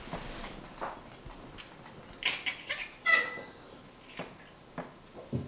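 A cat gives one short chirping call about three seconds in, just after a quick run of sharp clicks; a few faint taps come before and after.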